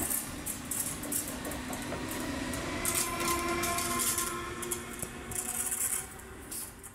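Electric multiple-unit passenger train running along the track and away: the wheels rattle and hiss on the rails, with thin whining tones over them, and the sound fades near the end.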